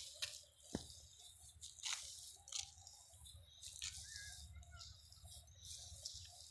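Faint, irregular crunching and rustling as urea-and-zinc fertilizer granules are scooped from a metal bowl and hand-scattered while walking through a young wheat crop.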